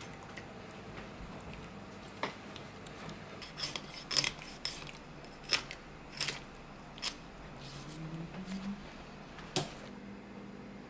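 Knife blade scraping and slicing as it separates the skin from the flesh of a large raw fish on a cutting board. A handful of sharp, irregular clicks and scrapes come as the blade meets the board and the skin.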